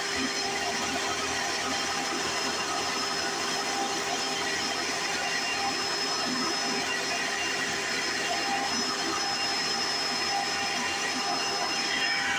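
A 1995 Hoover Encore Supreme U4261-930 upright vacuum cleaner running steadily, its motor and brush roll making a constant rush with a thin high whine on top.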